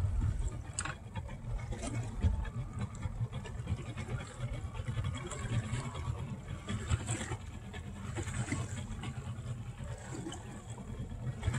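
Low, steady engine rumble.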